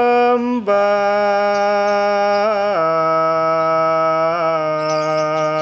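A man's voice singing a Javanese kidung in long, steady held notes, stepping down in pitch twice, with a slight waver on the held tone. Faint bird chirps come in near the end.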